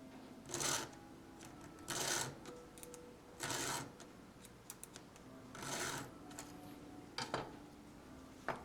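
Hand saw cutting through wood in slow strokes, one rasping stroke about every second and a half, with small knocks between.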